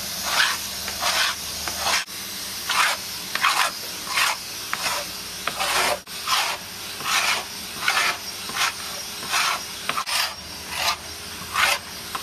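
A tungsten carbide scraper blade rasping anti-fouling paint off a boat hull in quick repeated strokes, roughly two a second.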